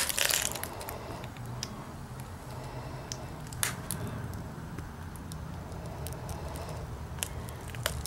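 Low steady rumble with scattered faint clicks and crackles, about a dozen, the sharpest one about three and a half seconds in.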